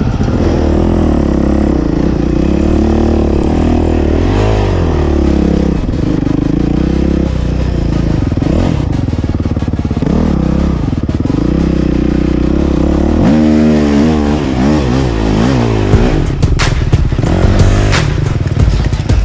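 Dirt bike engine being ridden off-road, its revs rising and falling again and again. Sharp knocks and clatter come in near the end.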